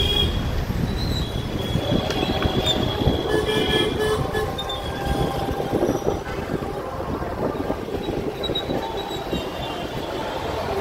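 Busy street traffic heard from inside a slow-moving car: a steady rumble of engines and tyres, with vehicle horns tooting at the start and again two to four seconds in.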